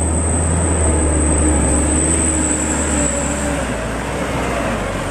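Loaded Mitsubishi Fuso Colt Diesel truck's diesel engine working hard as the truck climbs a steep dirt slope and passes close by: a steady low rumble with a thin high whine over it, easing a little about three and a half seconds in.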